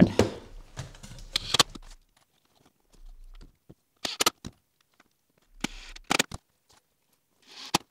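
Wooden knocks and clatter in a few short separate bursts as fence-board planks are handled and set against the frame.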